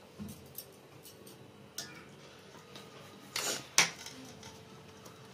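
Raw chicken pieces being handled in steel bowls and a steel plate: a few soft clicks, a short scrape a little past three seconds in, then one sharp metallic clink of a utensil against the steel.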